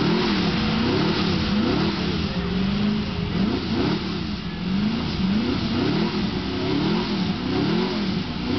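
TVR Tuscan's 6-litre Chevrolet V8 revved repeatedly while the car is stationary, its pitch rising and falling about once a second, with a brief steadier stretch around two seconds in.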